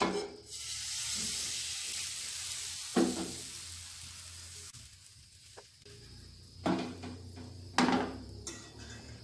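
Egg, flour and scallion batter hitting hot oil in a nonstick frying pan: a sizzle that starts suddenly and dies down over several seconds as the batter sets. Three short knocks of a utensil come as the batter is spread.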